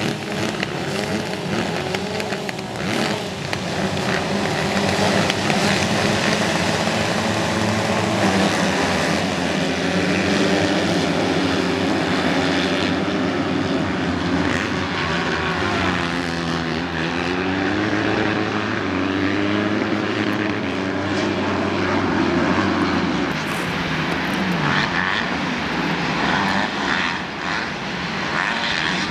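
A field of motocross bikes running together, engines revving hard and accelerating as a pack, with the engine notes rising and falling again and again through throttle changes and gear shifts.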